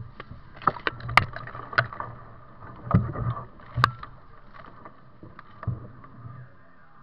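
Kayak being paddled: irregular paddle splashes and drips, with a few sharp knocks and clicks that are loudest about a second in and just before four seconds in.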